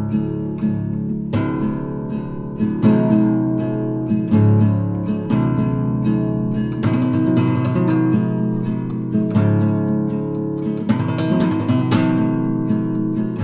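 Guitar music: plucked notes and strummed chords, each ringing on into the next.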